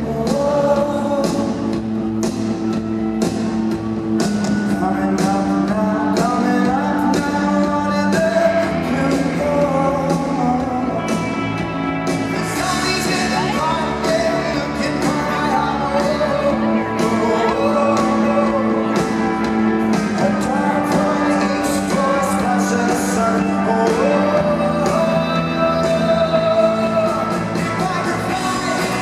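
Alternative rock band playing live in an arena: a male lead singer sings over guitars, bass and a steady drum beat, with the reverberant sound of a large hall.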